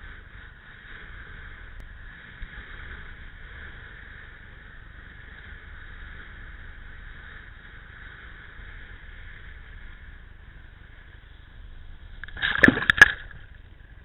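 Steady, muffled rush of wind and water against the kiteboarder's camera while riding fast over chop in strong wind. About twelve and a half seconds in comes a loud, brief crash of water with a few sharp knocks as the rider wipes out and the camera goes into the whitewater.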